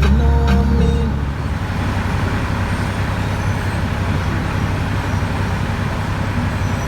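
Dump truck running down the road: steady engine hum and road noise. Music heard at the start ends about a second in.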